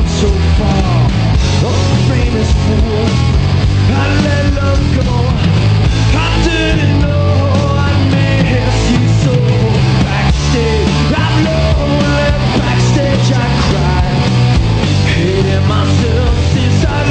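Punk rock band playing live and loud, electric guitar and drums driving a fast song, with a male singer shouting the vocals into a microphone.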